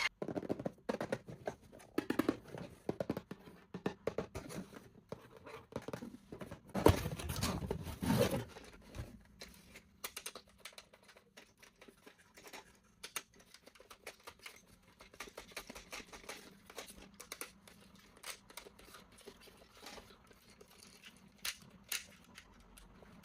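Plastic toy car parts and packaging being handled: scattered clicks, scrapes and rustling, with a louder stretch of rustling about seven seconds in.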